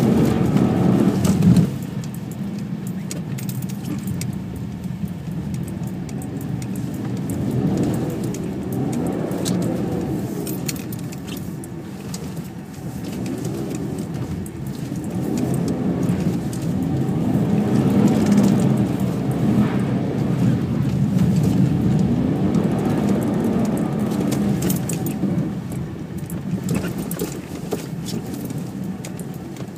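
BMW E46 328i's straight-six engine heard from inside the cabin, revving up and falling back again and again as the car is drifted on snow. It is loudest for the first second and a half, then drops. Scattered clicks and rattles run through it.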